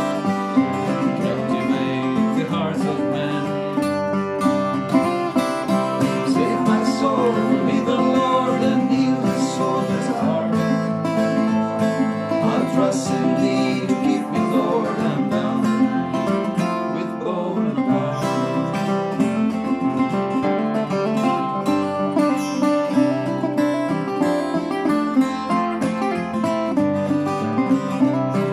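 Two guitars played together as an instrumental duet: a metal-bodied resonator guitar and a steel-string dreadnought acoustic guitar, picked in a steady folk style with no break.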